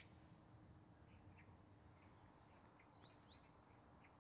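Near silence with faint, scattered bird chirps, a few of them quick rising or falling notes, over a faint steady low hum.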